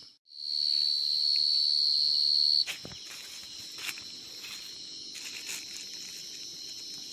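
A field cricket calls close by, a loud steady high-pitched trill that stops abruptly after about two seconds. It sits over a constant chorus of other field crickets. Faint rustles and knocks of hands in wet leaves follow.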